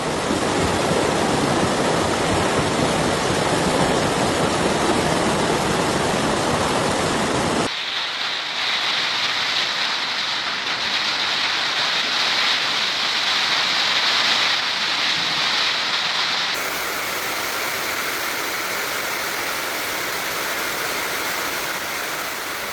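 Steady rushing of heavy rain and flowing floodwater, in three stretches that change abruptly in tone at about 8 and 16 seconds in: full and deep at first, then hissing and thinner, then an even rush.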